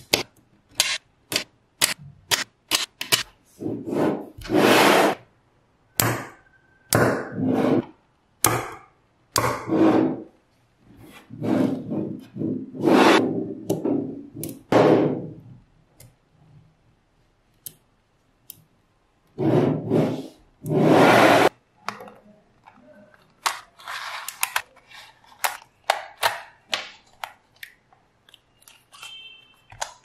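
Small neodymium magnet balls clicking sharply as they snap onto each other, in quick runs of clicks. Several longer stretches of dense rattling and scraping, a second or two each, come as whole panels of balls are pushed and slid together.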